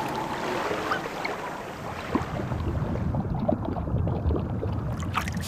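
Sea water sloshing and splashing around a half-sunken wreck. About three seconds in it turns into a muffled underwater sound, with only a low rumble left and the hiss gone.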